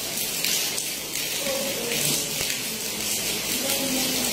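Steady hiss of background room noise, with faint, low speech now and then.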